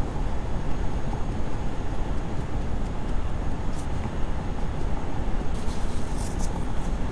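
Steady road and engine rumble heard inside a moving car's cabin, with a few brief high rustles about four and six seconds in.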